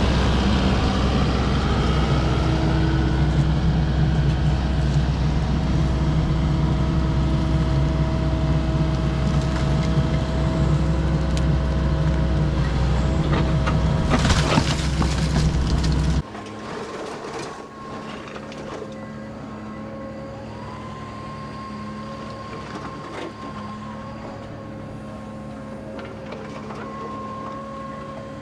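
Kubota KX080 excavator's diesel engine running hard, with scattered clanks and clatter of concrete being broken. About two-thirds of the way through, the sound drops suddenly to a much quieter, steady engine hum with a faint whine that rises and holds.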